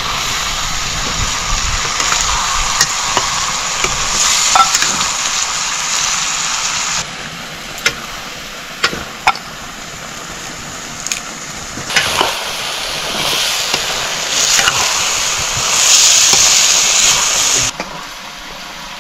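Food sizzling as it fries in hot oil in a pan, with a few sharp clicks of a spoon against the pan. The sizzle drops off sharply about seven seconds in, swells again from about twelve seconds, and cuts off suddenly near the end.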